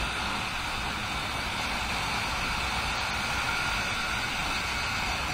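Steady rush of wind and road noise from a Yamaha R15 V3 motorcycle riding at cruising speed, its single-cylinder engine running underneath.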